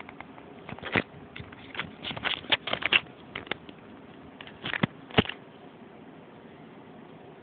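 A sleeping dog snoring and snuffling: irregular clusters of short crackly clicks, the loudest about five seconds in.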